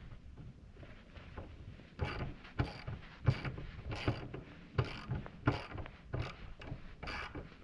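Hand ratchet wrench clicking in repeated short strokes, about one every 0.7 s after a quieter first two seconds, as a bolt on the four-wheeler's plastics is worked loose.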